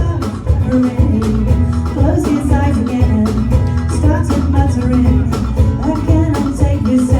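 Live band playing an instrumental passage of a song, with bass, guitar and a steady drum beat.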